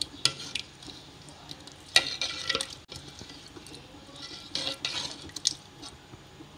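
Steel ladle gently stirring a simmering curry of meatballs and potato wedges in a pot: soft scraping and sloshing, with several clinks of the ladle against the pot, the loudest about two seconds in.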